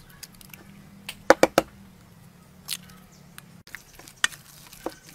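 Raw minced pork mixture being squished and worked by hand and with a wooden spatula in a metal bowl, with a few sharp clicks and knocks, the loudest a quick cluster about a second and a half in. A faint low hum lies underneath and stops partway through.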